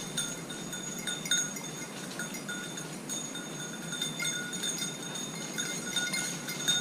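Hunting dog's bell jingling irregularly as an Irish setter moves through the undergrowth, a few clear ringing tones that come and go with short clinks.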